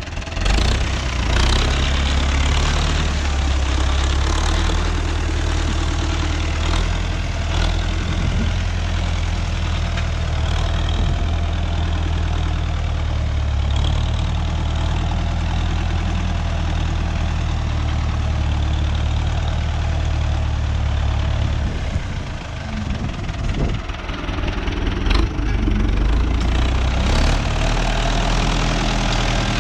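Tractor engine running steadily, easing off briefly about two-thirds of the way through, then picking up again.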